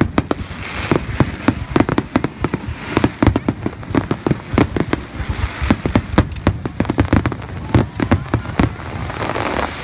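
Fireworks display: aerial shells bursting in rapid, irregular succession, several sharp bangs a second, over a rushing hiss that grows denser near the end.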